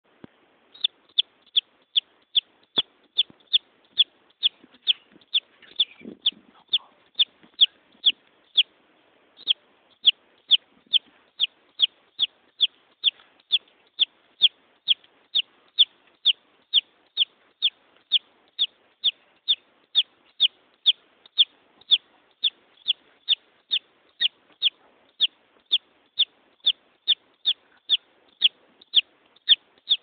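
A young chicken chick peeping over and over: short, high, falling peeps at a steady pace of about three a second, with one brief pause about a third of the way through.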